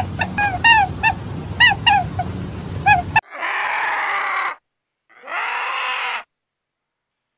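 Rapid short chirps, each a quick falling note, over a low steady hum; then, after a sudden cut about three seconds in, a white-headed vulture gives two harsh, rasping calls of about a second each, with a short gap between them.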